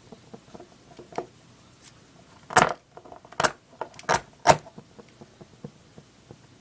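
A few sharp metallic clicks and clinks from a Zippo-type lighter being handled, four of them in the second half, the first a little longer than the rest.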